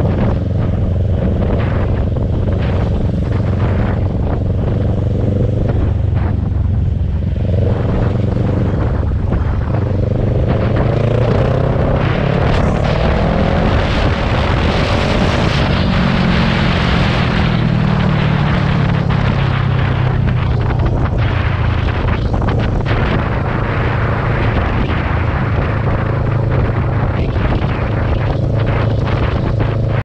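A large motorcycle's engine running while on the move, with a rush of wind noise. The engine pitch climbs from about eight seconds in, peaks around the middle and then eases back down as the bike settles to a steady speed.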